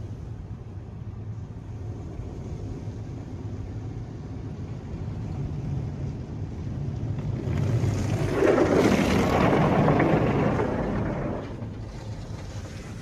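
Water spray from a PDQ LaserWash 360 PLUS touch-free car wash drumming on the car, heard from inside the cabin over a steady low hum. The spray grows loud about eight seconds in and drops off a few seconds later.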